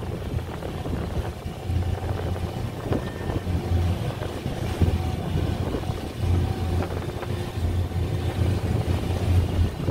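Small fishing boat's engine running underway, a steady low rumble, with water rushing past the hull and wind buffeting the microphone.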